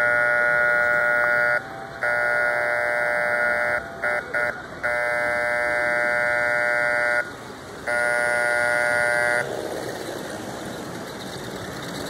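Model train's electronic diesel horn sounding a chord in blasts: two long blasts, a few quick toots, then two more long blasts, close to the grade-crossing signal pattern. After the horn stops, a steady running noise remains.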